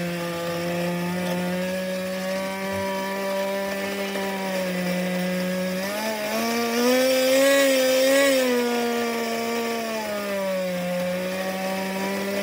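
Pro .15 nitro glow engine, a small single-cylinder two-stroke, running steadily on the bench. About six seconds in the throttle is opened and the revs rise with a louder, higher whine, then drop back to a steady idle about four seconds later.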